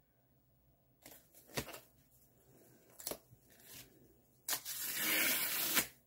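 Paper packaging being opened: a few light rustles and taps, then a long tearing sound of about a second and a half near the end.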